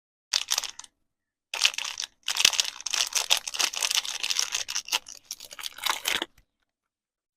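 Crinkling of soap packaging being handled and unwrapped: a short burst of crackling, then a longer stretch starting about a second and a half in and stopping about six seconds in.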